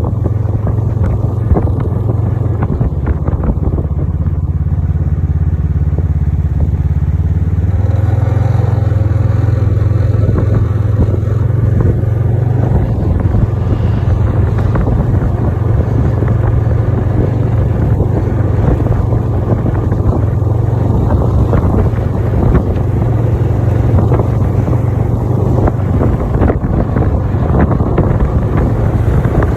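Snowmobile engine running steadily under way, with wind buffeting the microphone; the engine note steps up about eight seconds in and then holds.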